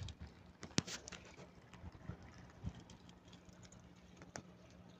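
Faint scattered clicks and light rustling, with a sharp click about a second in and another near the end, from a handheld phone being moved through plants. A low steady hum runs underneath.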